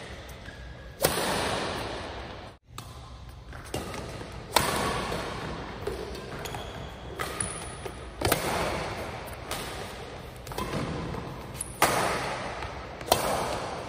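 Badminton rally: rackets strike a shuttlecock back and forth, sharp hits about every one to one and a half seconds, each echoing briefly in the hall. Short high squeaks come between some hits.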